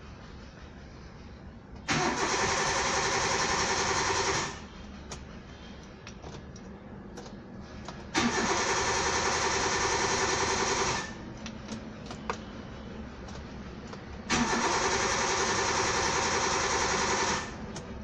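Car starter motor cranking the engine in three tries of about three seconds each, each cut off abruptly; the engine turns over but never fires: a crank-no-start fault.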